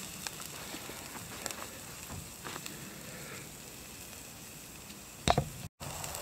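Food sizzling faintly as it cooks, with scattered small crackles. A single sharp click comes about five seconds in, and then the sound drops out for a moment.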